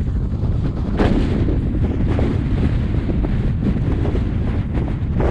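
Strong wind buffeting the microphone: a loud, heavy low rumble that surges in gusts, with sharp thumps as gusts hit the mic, the hardest about a second in.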